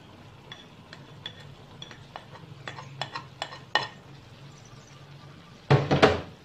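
A metal utensil tapping and scraping against a plate, a run of light clinks as fried egg strips are pushed off into a pan of soup, over a low steady hum. Near the end comes one brief loud knock and rustle.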